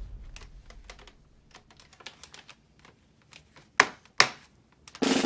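Light plastic clicks and taps from a Nerf Fortnite toy rocket launcher being handled, with two sharper clicks about four seconds in. Background music fades out at the start and comes back in near the end.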